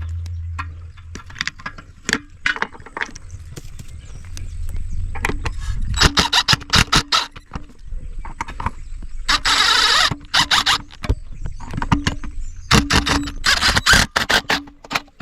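Hands and tools working on a metal floor scrubber during dismantling: irregular clanks, knocks and rattles, with a longer harsh scrape about ten seconds in.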